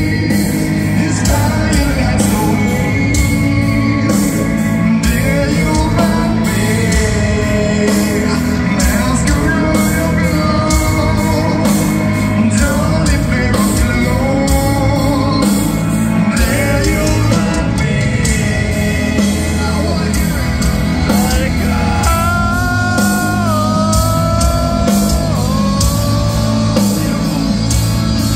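Rock band playing live: drums, bass and guitars. A melody line on top bends and wavers in pitch, most clearly in the last several seconds.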